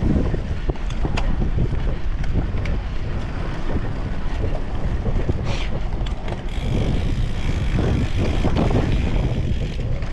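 Wind buffeting the microphone over the rumble and rattle of a cyclocross bike rolling over rough dirt and leaf-covered grass, with many small knocks as it hits bumps. A steady hiss joins about two-thirds of the way through.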